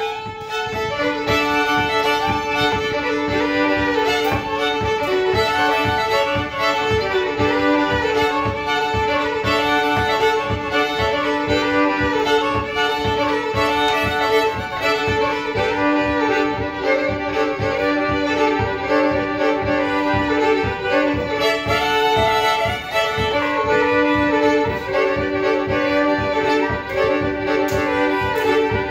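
Fiddle playing a lively old-time Appalachian tune, with a second stringed instrument keeping a steady rhythm of short strokes beneath it.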